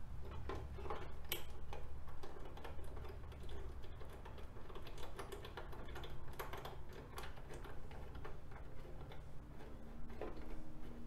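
Socket ratchet clicking in quick, irregular runs as two 10 mm nuts are snugged onto a lower fairing's captive bolts.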